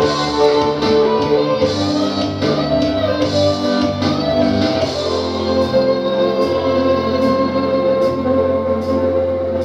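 Instrumental backing music for a song, with no voice over it; the chords change in the first half, then one chord is held from about halfway.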